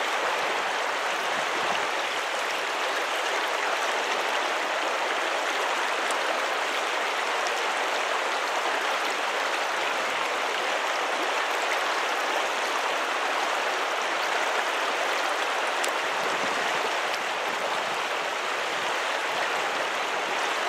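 Steady rush of a creek's current running over a riffle.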